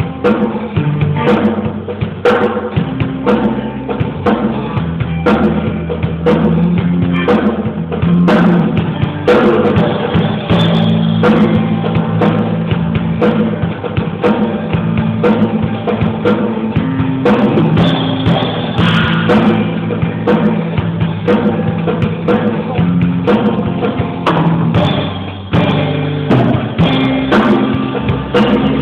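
Band music with a drum kit and bass, a steady beat of drum hits over held low notes.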